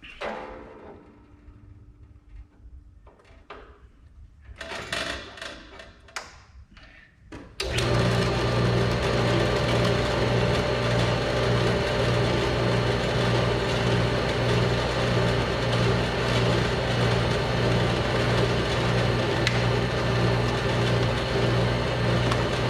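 Clatter and knocks of a workpiece being handled, then about seven seconds in a metal-cutting bandsaw is switched on and runs steadily with a low motor hum and blade noise.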